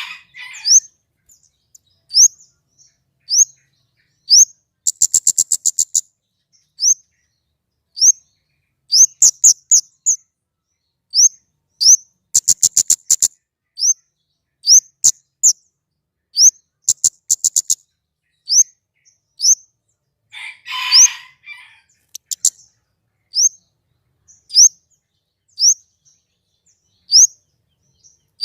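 A small songbird calling: short, high, rising chirps repeated about once a second, broken by three bursts of rapid ticking trills and one longer, harsher rasping call about three quarters of the way through.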